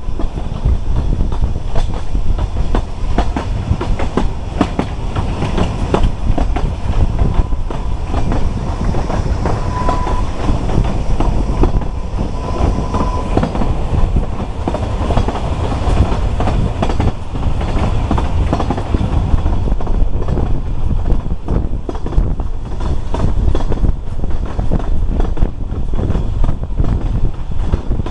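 Narrow-gauge railway carriage running at speed, heard from an open carriage window: a steady rumble with the clickety-clack of wheels over the rail joints. Two short high tones come about ten and thirteen seconds in.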